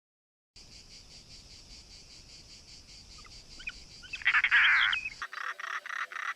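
Bird calls: over a steady, fast chirring, one loud harsh call comes about four seconds in, and after an abrupt cut a rapid run of repeated calls begins.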